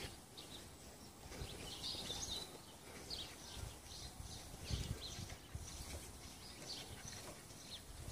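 Faint outdoor ambience with scattered short, high chirps throughout and a few soft low thumps, the clearest about five seconds in.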